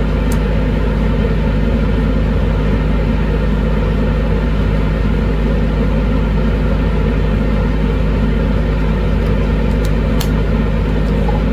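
Laminar flow hood's blower fan running steadily: a loud, even rush of air over a constant low hum.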